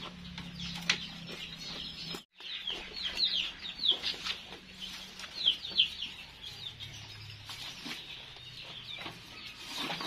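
Chickens clucking in short, quick downward calls, most of them in the middle of the stretch, over faint rustling as goats pull and chew at a pile of sweet potato vines.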